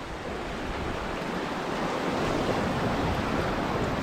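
Ocean surf washing steadily, a constant rush of water that grows a little louder over the first couple of seconds, with some wind on the microphone.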